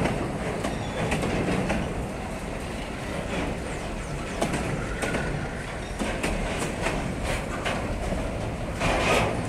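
Empty freight wagons of a long train rolling past close by: steel wheels clattering over the rail joints over a steady rumble, with a louder burst of clatter near the end.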